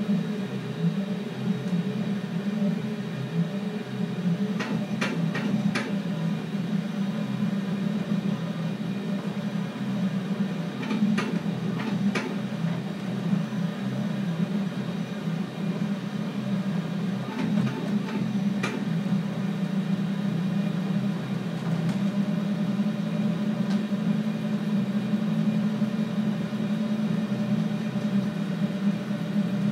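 IVI delta 3D printer's closed-loop stepper motors running steadily during a print, a low hum with faint clicks in three short clusters.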